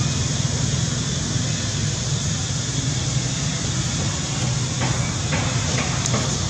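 Steady low rumble with hiss, with a few short faint clicks around five to six seconds in.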